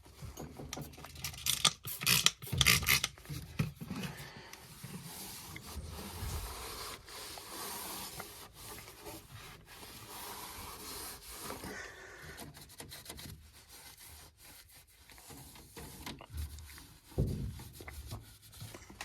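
Hand work on an oil furnace's filter canister with a wrench: rubbing and scraping of tools and hands on metal, with a burst of sharp clicks about two seconds in.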